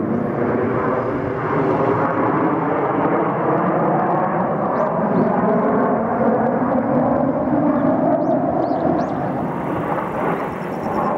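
Jet engines of a formation of Kawasaki T-4 trainers of the Blue Impulse team flying overhead: a loud, steady rushing noise whose pitch slowly drifts.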